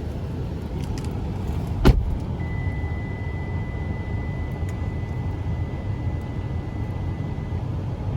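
A car's steady low rumble with wind, with a single sharp knock about two seconds in and a faint steady high-pitched tone through the middle.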